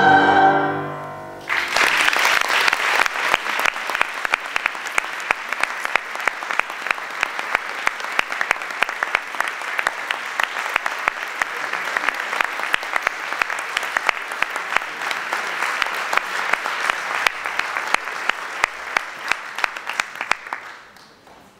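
A women's choir's final held chord fades out in the first second or so, then an audience applauds steadily for the rest, the clapping dying away near the end.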